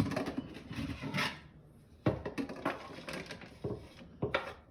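Kitchen handling sounds: a few knocks and clatters, one near the start, one about two seconds in and two near the end, with rustling between.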